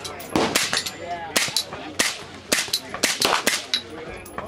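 Suppressed Zenith roller-delayed 5.56 rifle firing semi-automatically: about a dozen sharp shots in quick, uneven succession, each with a short echo.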